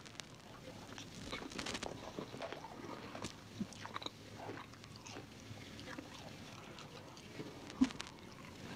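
Quiet eating and handling sounds: scattered light clicks, crinkles and small crunches from a clear plastic food container and a plastic fork, mixed with chewing.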